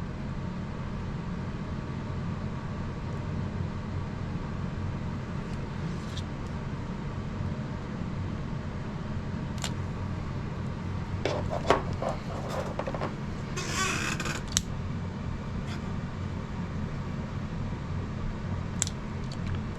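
Heat gun blowing steadily while it shrinks heat-shrink tubing over servo wires, with a few light handling clicks and a brief rustle about two-thirds of the way through.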